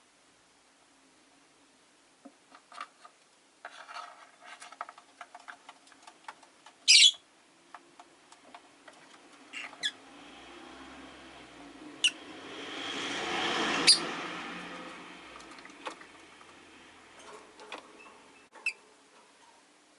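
Rosy-faced lovebirds moving in their cage: small scratching and clicking sounds, one loud sharp chirp about a third of the way in, and a few shorter chirps. A passing vehicle's noise swells and fades in the middle.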